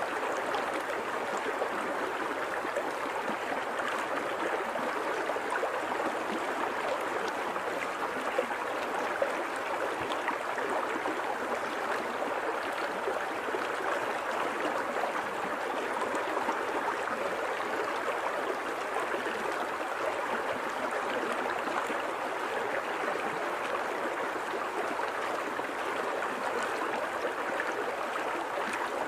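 Flowing river water babbling steadily over rocks, an even rushing with faint small splashes.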